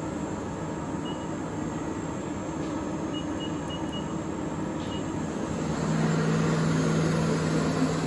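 XYZ ProTurn 340 CNC lathe running with a steady machine hum. A few short high beeps sound in the first half, and about six seconds in the hum grows louder with a stronger low tone.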